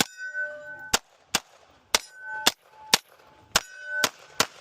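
CZ Shadow 2 9mm pistol firing a string of about nine shots at an uneven pace, with steel targets ringing out in a clear tone after several of the hits.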